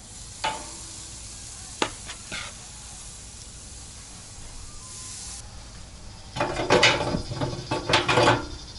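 Chicken thighs sizzling on the hot grate of a Pit Barrel Cooker, with a few sharp clicks of metal tongs against the grate in the first few seconds. A louder, rapid rattling sizzle joins over the last couple of seconds.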